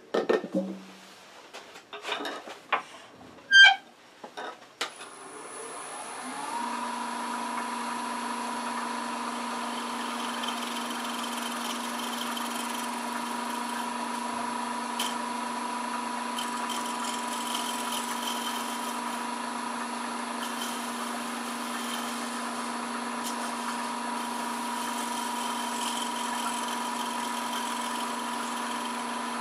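Wood lathe starting up about five seconds in, after a few knocks and clicks of handling, then running steadily with a low hum and a higher whine while a round scraper lightly dresses the end of the spinning box lid.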